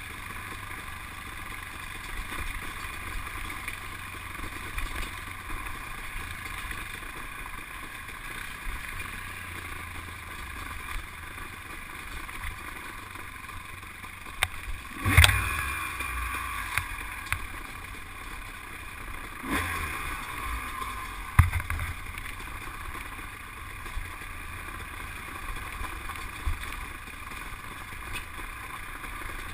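ATV engine running steadily as the quad rides a rutted dirt trail, with a few loud knocks from the machine jolting over bumps, the loudest about halfway through and another a few seconds later.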